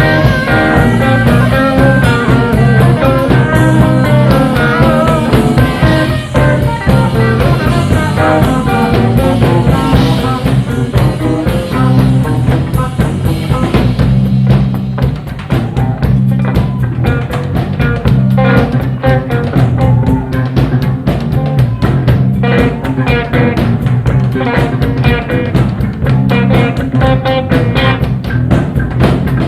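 Live blues-rock band playing an instrumental passage on a soundboard recording: electric guitar lines over bass and drum kit. About halfway through, the guitar thins out and the steady drum beat comes to the front.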